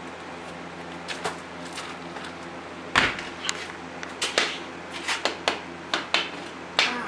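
Irregular wooden knocks and clatters as hobby horses on wooden sticks are handled and leaned against a door, the loudest about three seconds in and several more in the second half, over a steady low hum.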